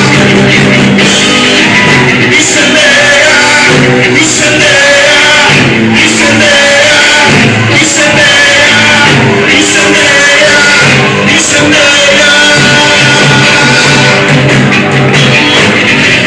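Loud music with singing, a band playing under voices.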